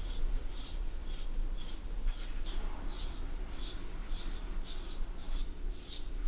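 A hand-held de-shedding brush stroking through a bloodhound's short coat, pulling out loose shedding fur. It makes a steady run of short rasping swishes, about two or three a second.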